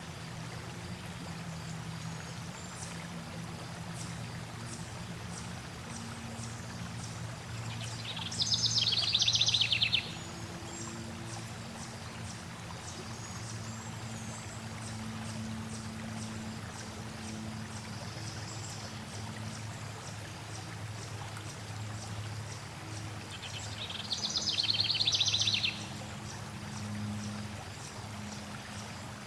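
Flowing water making a steady low rush, with a songbird singing a loud, rapid trill of about a second and a half twice, about a third of the way in and again near the end. Faint high bird chirps sound throughout.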